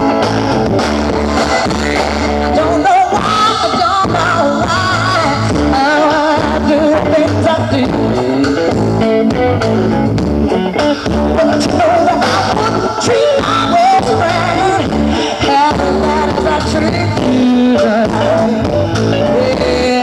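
Live blues-rock band playing: a woman singing over electric guitars, bass guitar and drums.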